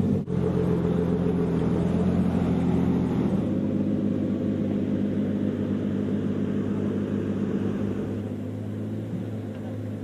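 Vehicle engine running steadily at an even pitch, with a brief cut just after the start. The sound changes slightly about three seconds in and gets a little quieter near the end.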